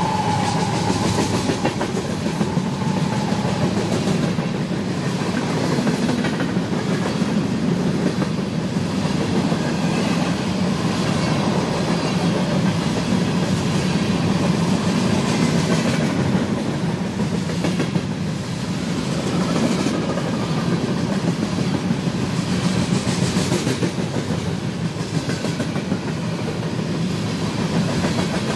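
Freight train cars rolling past, steel wheels clicking over the rail joints in a quick, uneven stream over a steady rumble.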